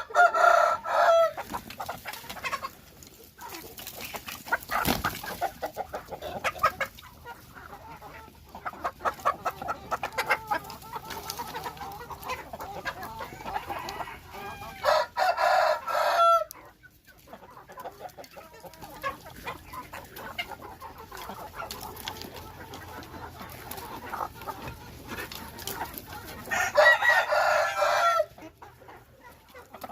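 Hmong chickens clucking, with a rooster crowing three times: near the start, about halfway through and near the end.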